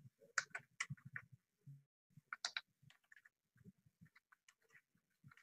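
Faint, scattered clicks of computer keyboard keys being typed, a quick cluster in the first couple of seconds and a few isolated ones after.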